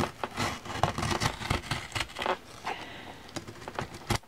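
A razor blade cutting through the paper and glued binding along the inside of a hardback book's spine, making a run of irregular crackling scrapes and clicks.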